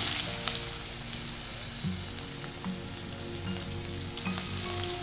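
Sliced onion sizzling in hot oil with whole cumin seeds in a karahi, loudest at the start just after the pieces go in, then settling to a steady sizzle.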